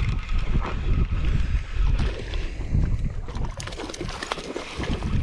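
Wind buffeting the microphone in a low, gusting rumble.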